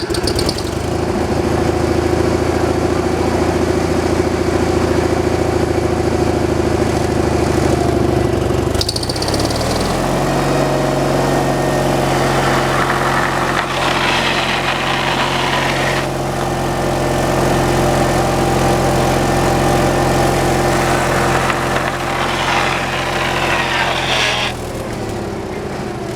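Small gasoline engine on a homemade kindling-cutting machine, running steadily just after start-up; its speed changes about nine seconds in. Two spells of added higher-pitched noise come over it, around the middle and near the end.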